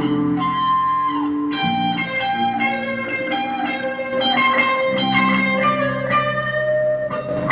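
Live band music played through small amplifiers, led by an electric guitar picking out a line of single plucked notes over a steady bass part.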